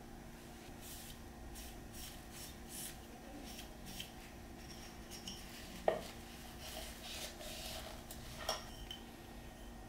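Small wooden bars with brass end caps being handled and set against each other on a wooden board: light clicks and taps, with one sharper knock about six seconds in. A steady faint hum runs underneath.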